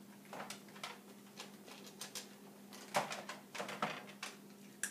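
Dog eating dog food: irregular crunching clicks of chewing, thickest and loudest about three to four seconds in, over a faint steady hum.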